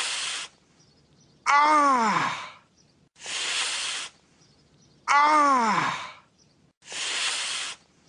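A person's voice in a repeating loop: a breathy hiss of about a second alternates with a groaning 'aaah' that falls steeply in pitch, with short silences between them. There are three hisses and two groans.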